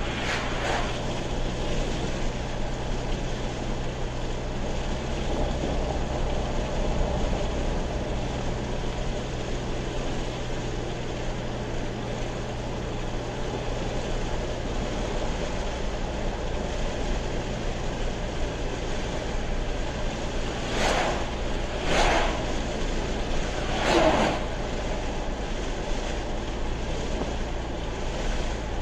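Steady road and engine noise of a car cruising on a highway, heard inside the cabin, with a low steady hum underneath. Three short louder swells come about three-quarters of the way through.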